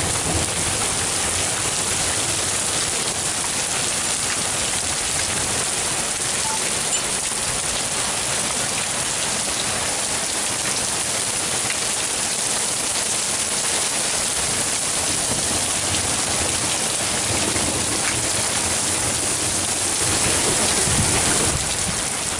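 Hail and rain pelting down on roofs, brick and paving in a steady, dense hiss, briefly a little louder near the end.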